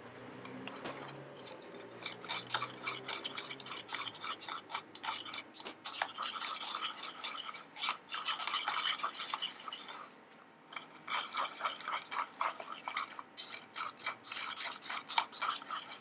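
Wire whisk beating a thin flour batter in a stainless steel bowl: fast, repeated scraping strokes against the metal, starting about two seconds in, with a brief pause about two-thirds of the way through.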